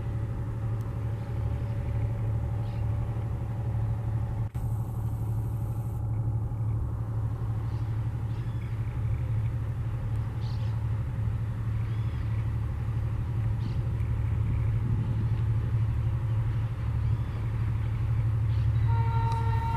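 Diesel locomotive of a freight train working hard up a grade with its engine throttled up, a steady low throb growing louder as it approaches. Its horn starts to sound near the end.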